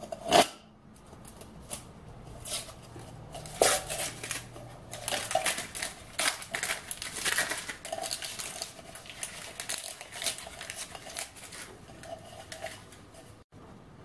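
Paper label being slit with a pocket knife and torn off a steel food can: a sharp click of the blade against the tin about half a second in, then repeated scratchy tearing and crinkling as the label is peeled away.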